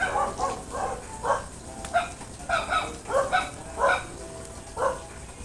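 Short animal calls, about ten of them at uneven intervals, each brief and pitched.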